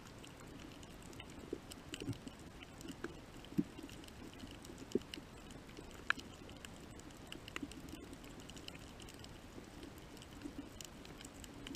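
Underwater reef ambience: a faint, steady low hum with scattered, irregular clicks and pops.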